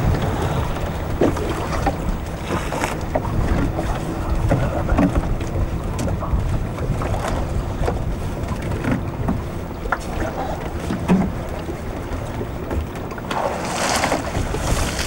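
Wind buffeting the microphone and sea water lapping against a small open fishing skiff, with scattered light knocks as the crew handle their lines. A broad splashing hiss of water rises near the end.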